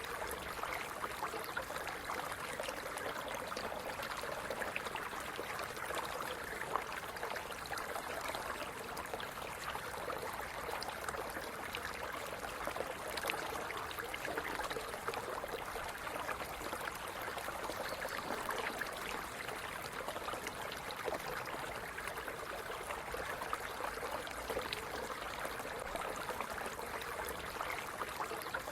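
Stream running steadily over stones, a continuous babbling and trickling of water.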